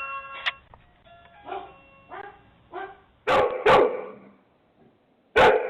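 A doorbell chime fades out, then a dog barks: a few quieter barks, two loud barks a little after three seconds in, and another loud bark near the end.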